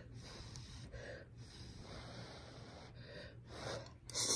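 Hot instant noodles being slurped into the mouth: airy sucking and breathing, with a louder slurp near the end.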